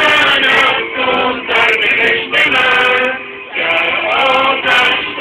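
A group of men's voices singing or chanting in unison in short phrases, with brief breaks between them, recorded on a mobile phone.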